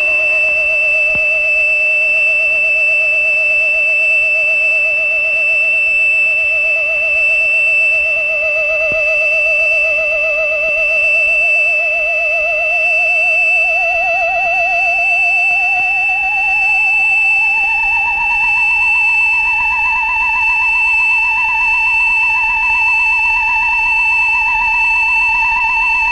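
Eerie soundtrack music: a single wavering tone with vibrato holds low, glides slowly up about halfway through and holds higher. A steady high-pitched whine runs under it throughout.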